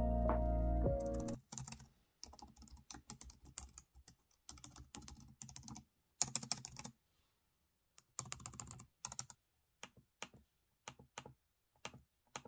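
Typing on a Samsung Galaxy Book2 laptop keyboard: quick runs of key clicks separated by short pauses, thinning to single clicks near the end. Lo-fi music plays at the start and stops after about a second and a half.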